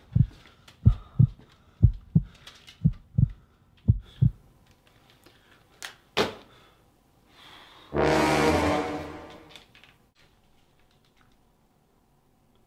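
Heartbeat sound effect: slow, paired low thumps about once a second, stopping after about four seconds. A sharp knock follows, then near eight seconds a loud buzzing burst lasting almost two seconds that fades away.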